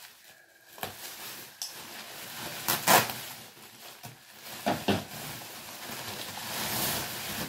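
Plastic bubble wrap crinkling and rustling as it is cut with scissors and pulled apart, with a few sharp crackles, the loudest about three seconds in.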